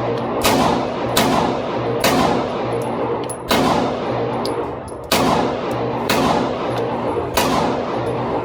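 A .40-calibre pistol firing a string of about nine shots at a steady pace of roughly one a second. Each shot cracks sharply and trails off in a long echoing decay.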